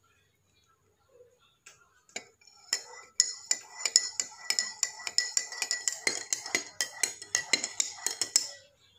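Metal spoon stirring a drink in a ceramic mug, clinking rapidly against the mug's sides with a bright ringing, about four or five clinks a second; it starts about three seconds in and stops just before the end.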